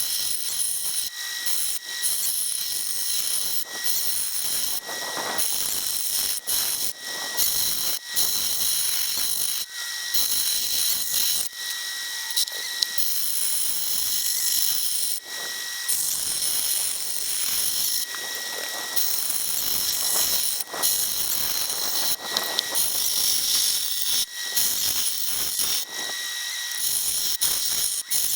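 Steel axe bit being ground on a motor-driven wet grindstone, a steady high rasping hiss broken into passes every second or two, with a thin squeal that comes and goes. The old stone is slightly out of round.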